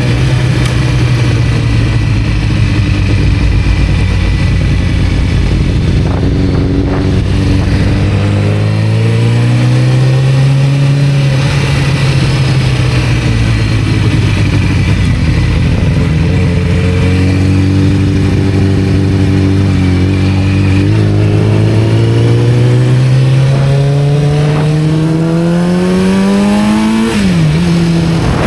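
1991 Kawasaki ZZR-400's inline four-cylinder engine running under way, its pitch rising and falling with the throttle: a short climb and ease-off, then a long steady climb with a brief sharp dip near the end.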